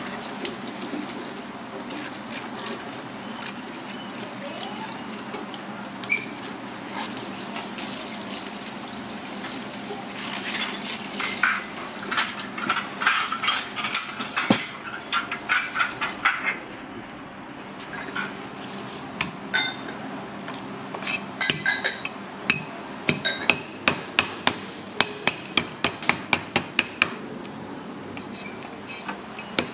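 Tap water running into a stainless steel sink as lemongrass is rinsed by hand under it. After about twenty seconds a meat cleaver starts chopping lemongrass stalks on a wooden cutting board: sharp knocks, about two a second.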